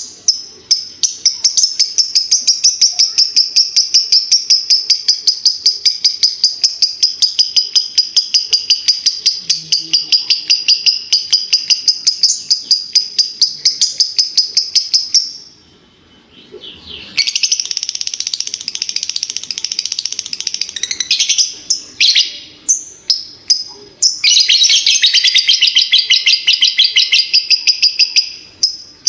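Lovebird 'ngekek': a long, rapid, shrill chattering trill of many evenly repeated notes, several a second, held for about fourteen seconds. It breaks off briefly, then comes two more long runs with scattered single chirps between them.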